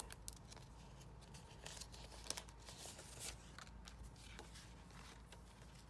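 Faint rustling and crinkling of paper sticker sheets being slid out of plastic photo-album sleeves and handled, with a few short scrapes and ticks.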